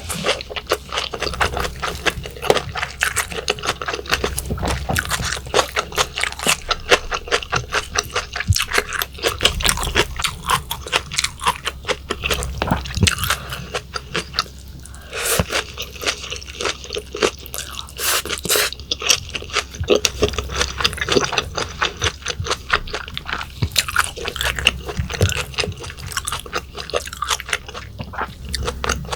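Close-miked eating sounds: a person chewing steadily, with a dense run of quick crunchy, wet clicks and a short lull about halfway through, eating raw yellowtail sashimi with lettuce wraps and kimchi.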